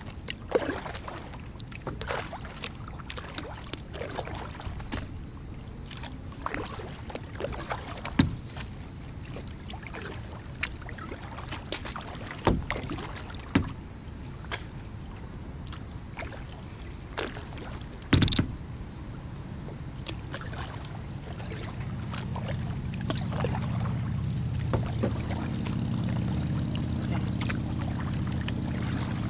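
Kayak paddling: irregular paddle strokes splashing and dripping, with sharp knocks of the paddle against the plastic kayak hull, the loudest about 8 and 18 seconds in. From about 20 seconds in a low steady hum grows louder beneath the strokes.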